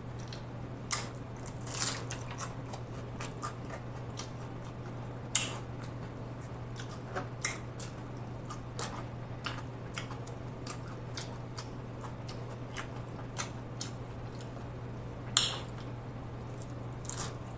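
Close-up crunching and chewing of a hard corn taco shell filled with meat and toppings: irregular sharp crunches, with two louder bites, one about five seconds in and one near the end.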